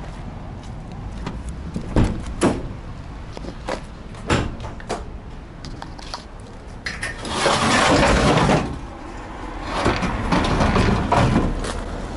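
The rear cargo doors of a van being unlatched and opened: a few sharp clicks and knocks, then two longer stretches of scraping and rattling noise as the doors swing and are handled.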